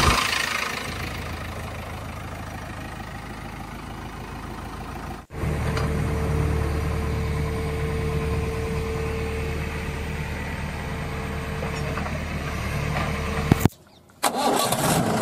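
Engine running steadily with a low hum and a steady whine over it, in edited sections that cut off abruptly about five seconds in and again near the end.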